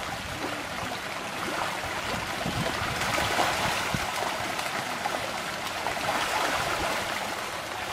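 Many pangasius fish splashing and churning at the pond surface in a feeding frenzy: a steady rushing water noise made of many small splashes.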